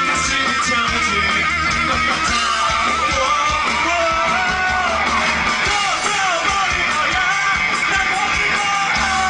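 Live rock song played loud through a PA: strummed electric guitar and a band, with a singing voice over it.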